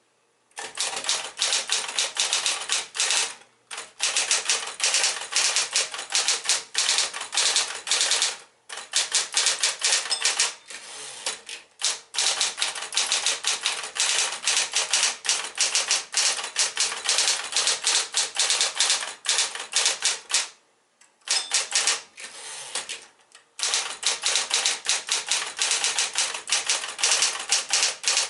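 Smith-Corona Electra 120 electric typewriter typing: fast runs of keystrokes, broken by a few brief pauses.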